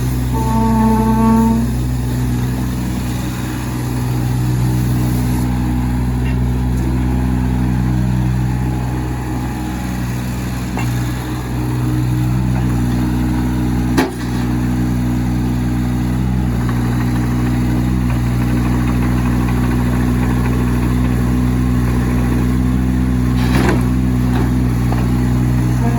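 Kubota U25 mini excavator's diesel engine running steadily, with a brief pitched whine about a second in and a single sharp knock about halfway through.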